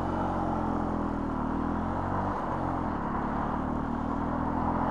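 Benelli TNT 125's single-cylinder four-stroke engine running under way, with wind rush. Its pitch dips briefly about halfway through, then picks up again.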